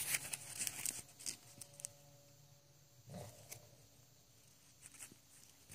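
A baby capuchin monkey's fingers scratching and fumbling in a denim jeans back pocket at a wallet: a quick run of small scrapes and clicks in the first second, then quieter, scattered rustling and clicks. A brief low vocal sound comes about three seconds in.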